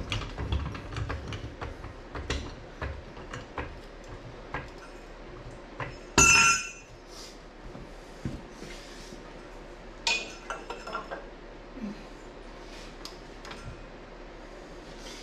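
Steel parts and hand tools clinking and knocking as they are handled, with a loud ringing metallic clang about six seconds in and a smaller ringing clank around ten seconds.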